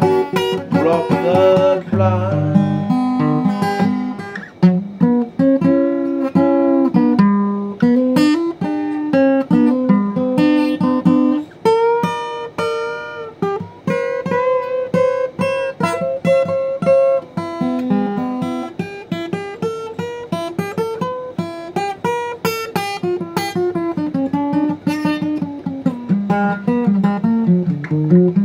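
Acoustic guitar playing a blues instrumental passage: single-note melody lines, some notes bending in pitch, over plucked bass notes.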